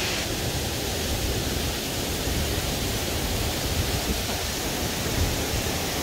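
Steady, even rush of fast-flowing water.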